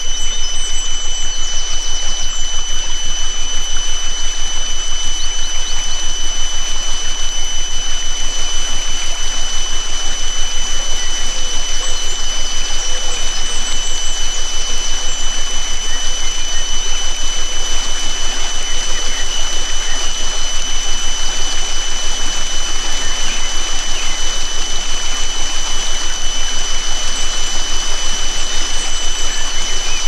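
Two steady high sine tones held unchanged over the constant rush of a flowing forest stream, with faint bird chirps now and then. This is a 'healing frequency' tone layered on a nature recording.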